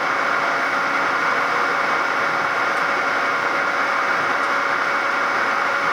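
Steady running noise inside a JR East 255 series limited express car under way: an even rush with a few faint steady tones over it and no change in pace.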